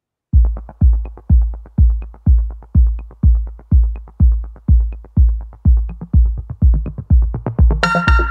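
Electronic background music: a steady kick-drum beat about twice a second, with a cymbal crash and synth chords coming in near the end.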